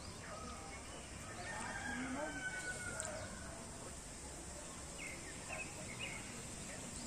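Faint outdoor background of distant voices and bird calls, with a few short high chirps about five seconds in.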